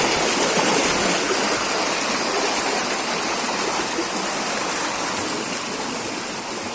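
Stream water rushing, a steady dense hiss that slowly grows quieter.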